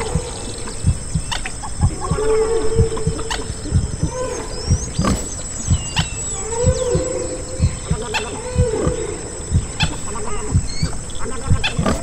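Humpback whale song: long moaning calls with higher squeaks and glides, layered over a recorded heartbeat that thumps steadily underneath.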